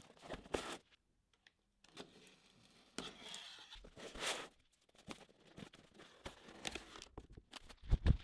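Cardboard product box being handled and opened: sliding and scraping on a table, with tearing and rustling of cardboard and paper. A dull low thump comes near the end.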